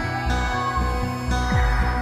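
Background music: sustained synth tones over a deep, repeating bass line whose notes now and then slide downward.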